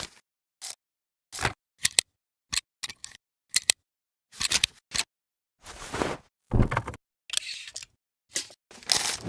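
Film burn sound effect: a broken string of sharp clicks and short crackling noise bursts, each cut off by dead silence, with longer and louder bursts in the second half.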